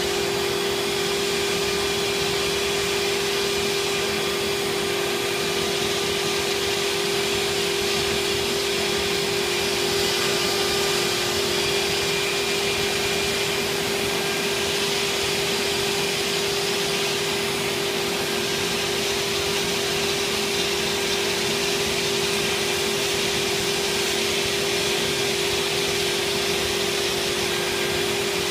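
MultiCam 3000 series CNC router spindle running steadily as it machines vinyl-covered aluminum sheet: a constant pitched whine over a steady rushing noise.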